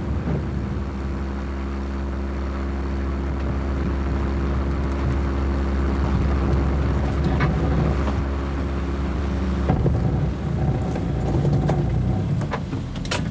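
Classic Mercedes-Benz Ponton sedan's engine running steadily as it drives, with the drone changing about ten seconds in as the car slows to a stop. A few sharp clicks come near the end.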